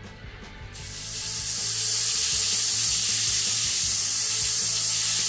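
Stovetop pressure cooker letting off steam through its weight valve in one long, loud hissing whistle. It starts about a second in and builds to full strength within another second. A long whistle like this means the cooker has come up to full pressure.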